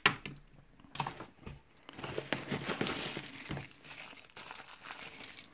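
Plastic bubble wrap crinkling and rustling as a small wrapped bundle of keys is opened and handled, with a couple of light clicks near the start.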